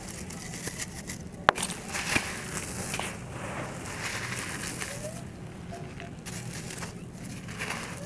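Soft, dry sandy concrete block being snapped apart and crumbled by hand into gritty pieces, with steady crunching and grit falling onto dirt. A sharp snap about one and a half seconds in is the loudest moment, followed by a smaller one.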